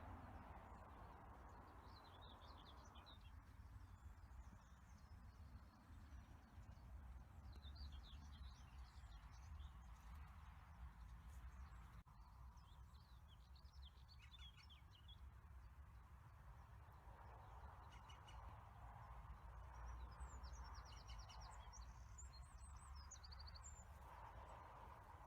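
Faint songbirds singing in several short, twittering phrases, over a low steady rumble.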